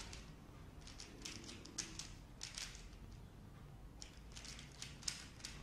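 Dayan ZhanChi 3x3 speedcube being turned fast in a speedsolve: quick runs of light plastic clicks and clacks from the layers turning, in flurries with short pauses between them.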